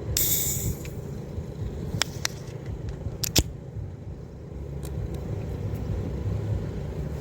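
A Union beer being opened: a short hiss of escaping gas right at the start, followed by a few sharp clicks, over a steady low rumble.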